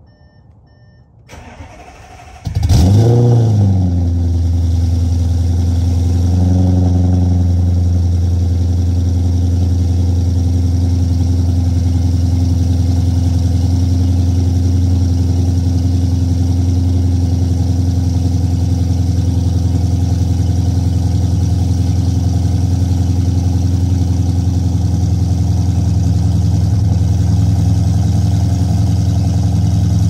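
Audi 4.0 TFSI twin-turbo V8 starting about two and a half seconds in: a quick flare of revs that falls back, then a steady idle. It is the first start after the cam timing was corrected on both banks, which had been off and causing misfires.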